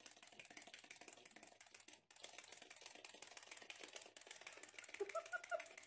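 Faint, fast, steady clicking, like a small ratcheting mechanism. A few short faint tones come in about five seconds in.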